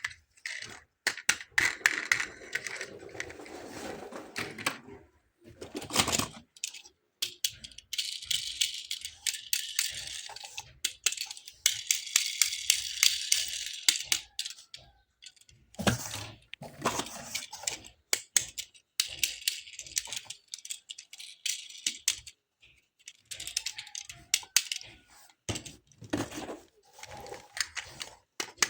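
Toy cars and their packaging being handled: irregular small clicks and rattles, with stretches of rustling lasting a few seconds at a time.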